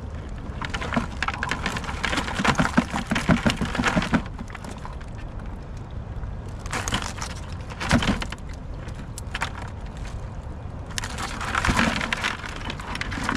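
Wire crab pot being shaken and knocked to dump blue crabs out, in three bouts of rattling and clattering as the crabs tumble against the wire and each other.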